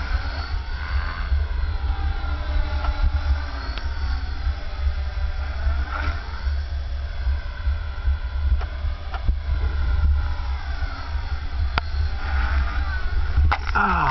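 HK450 electric RC helicopter (a T-Rex 450 clone with a 3500 kV brushless motor) flying 3D manoeuvres: the motor and rotor whine rises and falls in pitch again and again as it loops and flips. Wind buffets the microphone throughout, and near the end there are a few sharp knocks.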